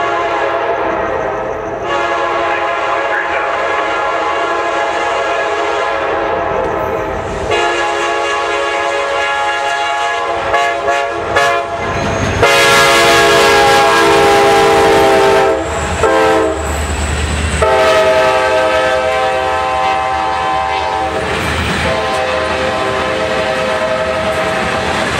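Freight locomotive air horn sounding a long series of blasts as the train approaches, several held for a few seconds and some shorter, loudest about halfway through. Near the end, the freight cars start rolling past on the rails.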